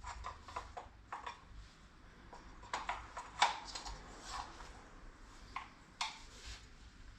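A series of clicks and knocks as a Big Boi Washr Flo pressure washer lance is pushed and worked into its trigger gun, with the sharpest knock about three and a half seconds in.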